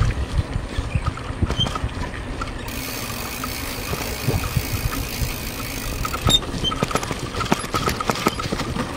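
Rough wind buffeting on the microphone mixed with the rumble of tyres rolling over a cracked concrete road while riding. Light rapid ticking joins in over the last few seconds.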